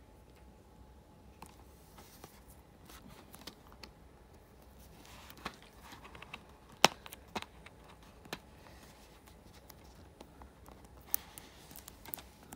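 Fingers and a fingernail picking and scratching at a stuck sticker and its residue on a plastic DVD case. Faint scratching with scattered small clicks and taps, the sharpest click about seven seconds in.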